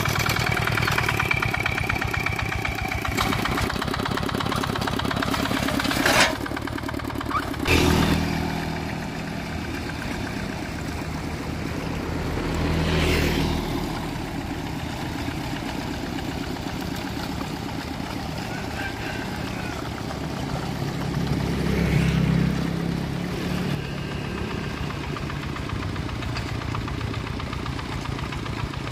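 Dongfeng single-cylinder diesel engine of a two-wheel hand tractor running steadily under working load, swelling louder for a moment several times.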